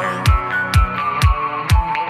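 Electronic dance music with a steady kick drum about twice a second under held synth chords, without vocals.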